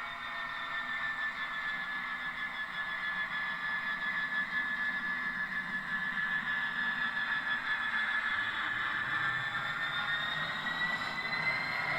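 Recorded Class 66 diesel locomotive engine sound played by a model locomotive's Loksound v4 sound decoder through small twin speakers: a steady high whine over a low engine rumble, the whine rising in pitch and getting louder over the last few seconds as the engine revs up.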